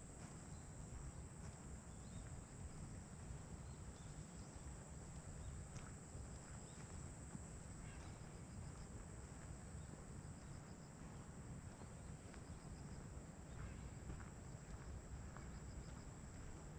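Quiet outdoor ambience by a pond: a faint low rumble of light wind on the microphone, a steady high-pitched insect drone, and a few faint scattered chirps.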